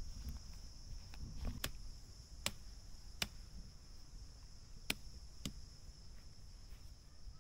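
Blade chopping at the woody stem of a wild eggplant shrub near the ground: about five sharp chops at irregular intervals, with a few fainter taps between them. A steady high insect hum runs underneath.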